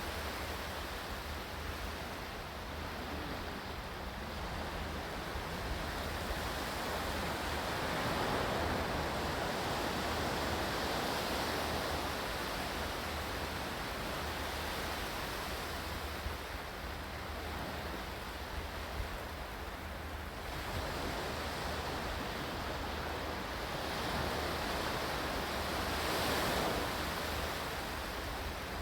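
Ocean surf: a steady rush of breaking waves that swells and eases slowly, with two stronger surges, the second near the end.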